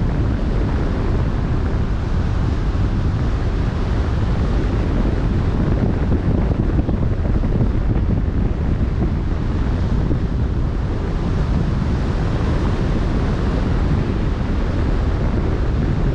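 Wind buffeting the microphone over the rush of open-ocean waves: a loud, steady noise with no let-up.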